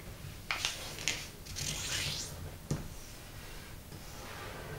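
Fingers rubbing along the diagonal fold of a square sheet of origami paper to crease it sharply, in several short scraping strokes, then the paper rustling and crackling as it is opened out.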